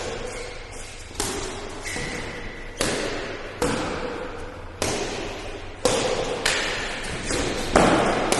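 Badminton rally in an indoor hall: rackets striking the shuttlecock about eight times, roughly once a second. Each hit is sharp and trails off in hall echo.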